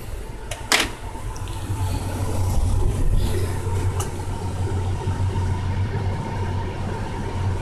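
Steady low electrical hum with a faint high whine above it, from the powered water-cell test rig, its variac and driver circuit still running; a single sharp click comes less than a second in.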